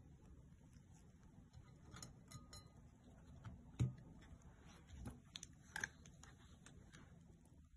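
Faint scattered clicks and light taps of food and bread being handled on a plate, the sharpest a little under four seconds in and another near six seconds.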